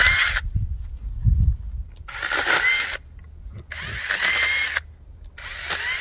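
Sainlogic 6-inch 21-volt cordless mini electric chainsaw switched on in short bursts of about a second, its motor whine rising as the chain spins up: one burst stops about half a second in, then three more follow. A low thump about a second in.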